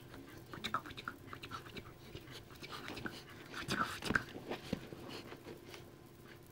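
Newfoundland puppy snuffling and breathing right at the microphone, with scattered clicks and rustles as its fur and nose brush against it; the busiest stretch is a little past the middle.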